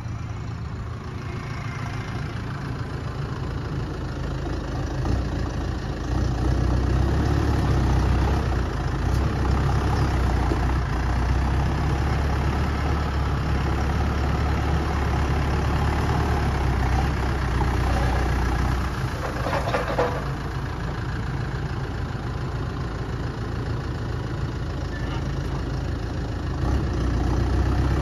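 Diesel tractor engine running as the front loader works a compost pile; the engine speeds up about six seconds in, eases back about two-thirds of the way through, and speeds up again near the end, with a brief clatter in the middle.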